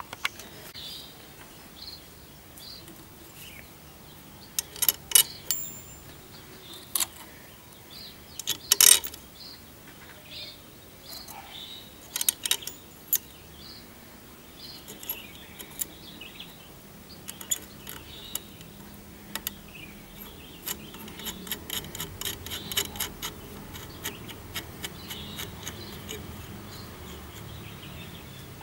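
Small metal parts of a classic sewing machine's thread-tension assembly clicking and clinking as the tension discs and spring are fitted back onto the tension stud. Sharp clicks are scattered through it, with a run of quick small ticks in the second half.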